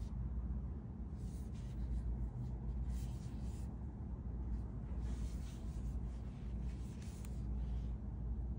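Soft, scratchy rustling of hands handling a power bank, coming every second or two over a steady low hum.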